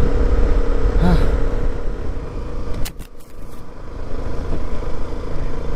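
Motorcycle running on the move, a steady hum over a low rumble. About three seconds in there is a sharp click and the sound briefly drops away before returning.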